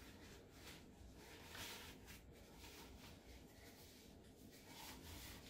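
Faint rustling and sliding of a stretchy silicone-treated knit gun sock being pulled down over a scoped rifle, in soft irregular strokes.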